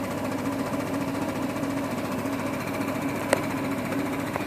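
CareFusion 3100A high-frequency oscillating ventilator running, its piston driver oscillating rapidly in a steady, evenly pulsing hum. A single sharp click about three seconds in.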